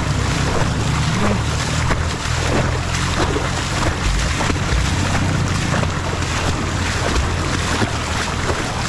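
Wind rushing steadily over the microphone of a moving motorcycle, with the engine running low underneath.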